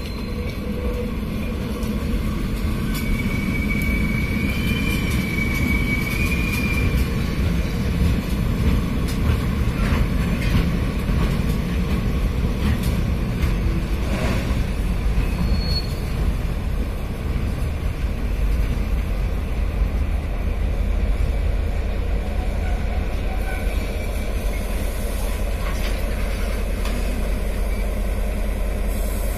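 Freight train of a covered wagon and flatcars behind diesel-electric locomotive R155 moving slowly while shunting: a steady low rumble of the locomotive and rolling wagons, with a wheel squeal a few seconds in and a few short squeaks and clicks from the wheels later on.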